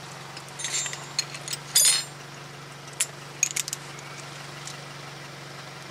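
Short metallic clinks and taps of hand tools, a socket on an extension and a ratchet, being handled against each other. The loudest clink comes about two seconds in, with a few lighter ones around three seconds. A steady low hum runs underneath.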